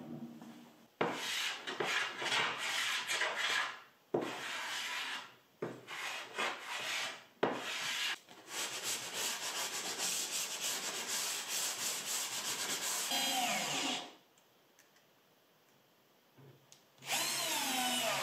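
Sanding block rubbed by hand along the edge of an oak-veneered panel, first in separate strokes and then continuously for several seconds. After a short pause, near the end, a 12 V cordless drill-driver runs for about a second, its pitch falling as it drives a screw into a hinge.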